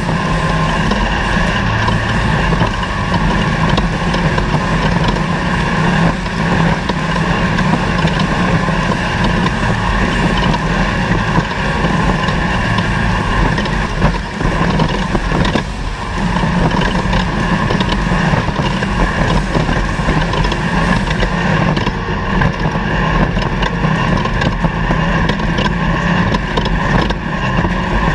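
Off-road race vehicle's engine running continuously at speed, with a steady rush of noise over it and brief dips in level twice around the middle.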